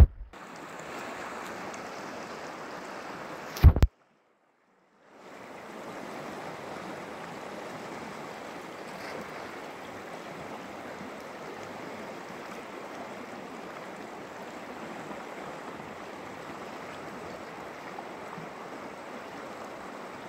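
River water rushing steadily over rocks. About four seconds in, a short loud thump is followed by a second of dead silence before the rushing resumes.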